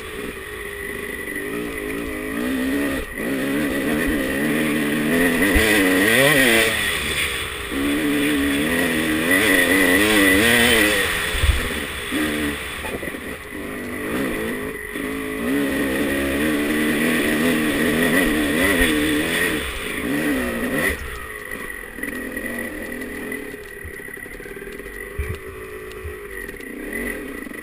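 Dirt bike engine revving up and down as it is ridden, its pitch rising and falling with the throttle, easing off and quieter for the last several seconds.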